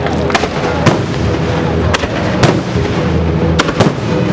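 Fireworks shells bursting overhead: about six sharp, loud bangs at irregular intervals, some in quick pairs.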